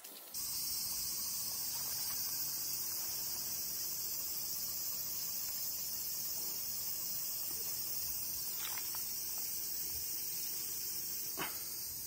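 Cicadas calling in a steady, continuous high-pitched chorus, with two faint short clicks late on.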